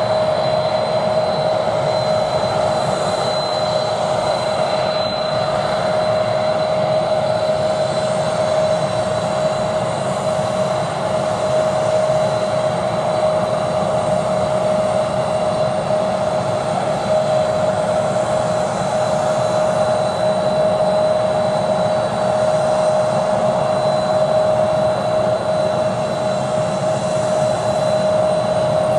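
Jet airliner engines running at idle on the apron: a steady whine over a constant rush.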